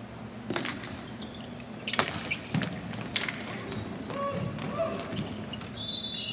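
Ball hockey play: sharp clacks of sticks striking the plastic ball, four or five over a few seconds. A brief high squeal comes near the end.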